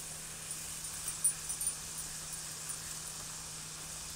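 Potato chips deep-frying in hot oil in a wok: a steady high sizzle, with a few small clicks and pops in the first two seconds.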